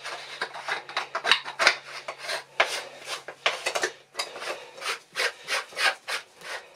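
Stainless-steel boilie gun being handled and worked by hand: a run of short rasping, rubbing strokes, about two a second. A faint low hum stops about four seconds in.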